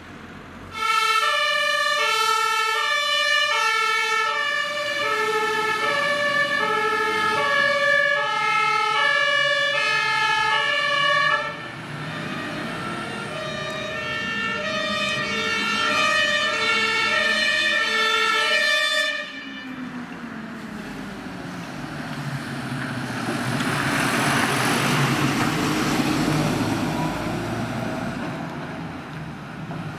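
Fire engine's two-tone siren (German Martinshorn) sounding its alternating high-low tones, loud at first, dropping in level about eleven seconds in and cutting off about nineteen seconds in. After that, engine and road noise from the vehicles, with a rising engine note and a swell of passing-vehicle noise.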